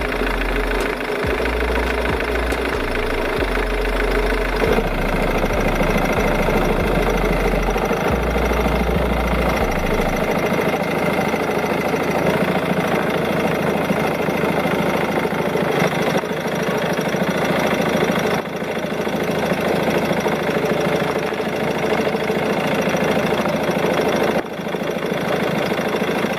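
A car engine idling steadily, with background music underneath whose bass line drops out about ten seconds in.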